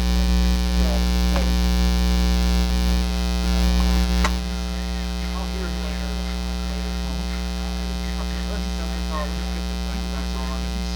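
Prosonic PQR 9962 boombox putting out a steady mains hum with many overtones, which the title puts down to a bad ground inside the set. About four seconds in there is a click and the deepest part of the hum drops to a lower level.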